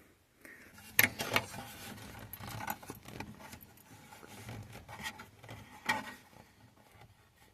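Hands working at the old cigarette lighter fitting in a truck dash, which is stuck: scattered light clicks, taps and rattles of small metal and plastic parts, with the sharpest clicks about a second in and again near six seconds.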